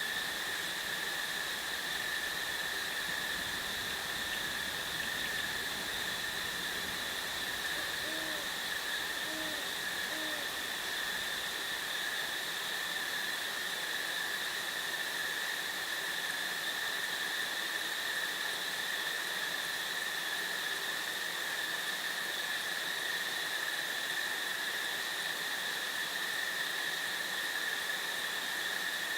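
An owl gives three faint low hoots in quick succession, over a steady, high insect drone and a background hiss.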